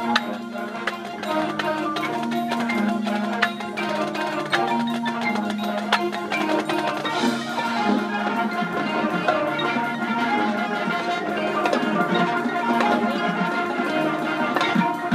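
Marching band playing: held wind-instrument chords under rapid struck notes from the pit's mallet percussion, such as marimba, xylophone and bells.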